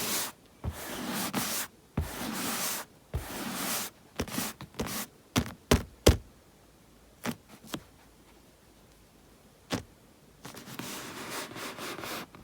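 Bare palms rubbing together close to the microphone in swishing strokes of about a second each, then a quick run of sharp finger taps and a few single taps. The rubbing starts again near the end.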